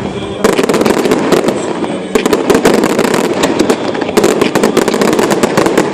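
Fireworks going off in a dense, rapid barrage of crackling bangs, many a second, louder from about half a second in.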